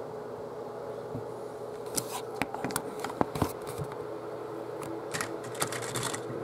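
Scattered light plastic clicks and short rustling scrapes as a LEGO trailer is handled and moved by hand, starting about two seconds in, over a steady faint hum.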